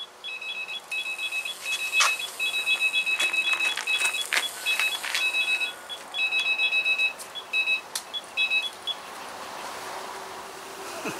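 Electronic carp bite alarm beeping rapidly, about four beeps a second in an uneven string that stops near the end: a fish is pulling line off the rod, a run. A few sharp knocks sound among the beeps.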